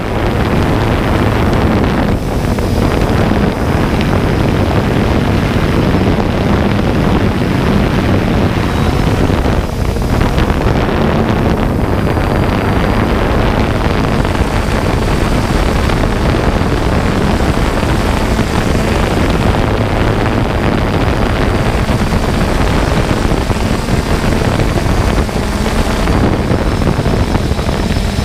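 Camera drone in flight: a steady whir of its motors and propellers, with wind rushing over the on-board microphone.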